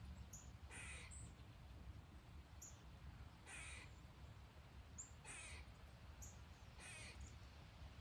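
A crow cawing faintly, four harsh caws about a second and a half apart, with thin high chirps of small birds in between.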